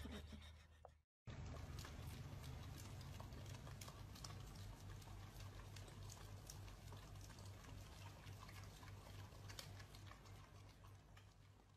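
Faint wet licking and smacking of two huskies, an adult and a puppy, lapping at an ice cream cone, with scattered soft clicks over a low steady hum.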